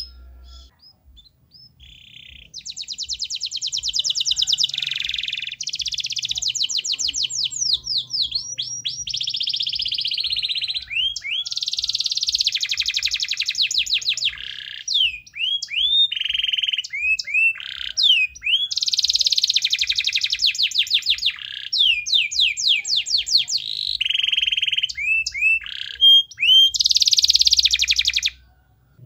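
Domestic canary singing in full song: a long, almost unbroken run of rapid trills and rows of quick down-slurred whistles, starting after a short lull and stopping shortly before the end.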